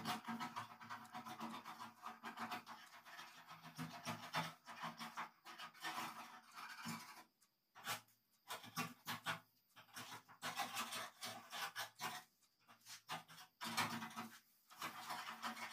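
Quick scratchy rubbing strokes of hand work on the car's body, broken by a few short pauses.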